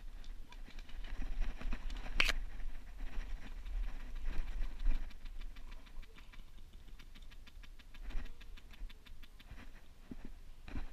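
Close rustling and scuffing of plant stems, dry grass and gear against a body-worn camera as the player shifts behind cover, over a low wind rumble on the microphone. A single sharp click comes about two seconds in, and a quick run of light ticks follows in the second half.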